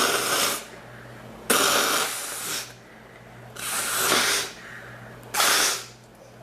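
A woman coughing four times in separate harsh bursts, the second one the longest.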